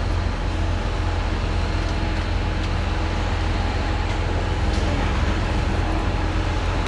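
Jet aircraft engine noise at an airport: a steady low rumble with an even rushing noise and a faint whine.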